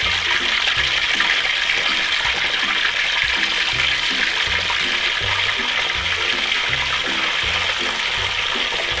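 Chicken wings deep-frying in hot palm oil in a wok: a loud, steady sizzle, with soft background music underneath.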